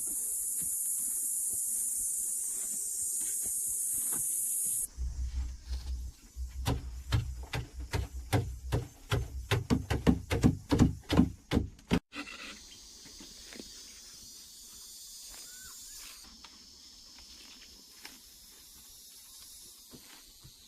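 A steady high hiss for about five seconds. Then comes a run of loud, quick knocks or thuds that get faster and cut off suddenly, followed by faint, quiet outdoor ambience.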